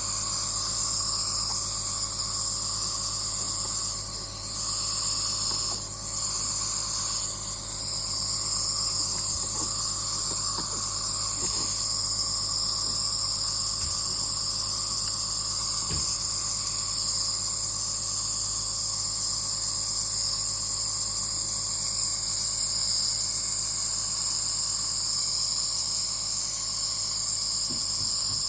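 Compressor nebuliser running: a steady motor hum under an even, unbroken hiss of air and mist.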